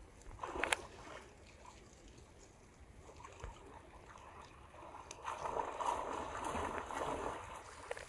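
Water sloshing and splashing as a Border Collie puppy paddles across a river: a short burst under a second in, then a longer stretch of splashing from about five seconds in.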